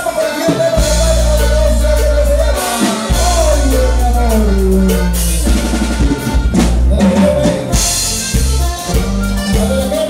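Latin dance music from a band: singing over a drum kit and a heavy, steady bass line.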